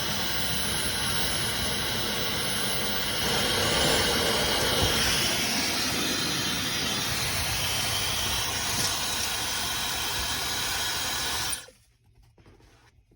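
Dyson Supersonic hair dryer running: a steady rush of air with a thin high whine over it. It gets louder for a couple of seconds near the start, then cuts off suddenly as the dryer is switched off.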